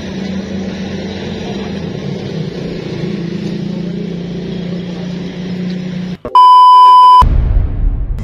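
A car running, steady engine and road noise with a low hum under it. About six seconds in this cuts off, and a loud, steady beep sounds for about a second, followed by music.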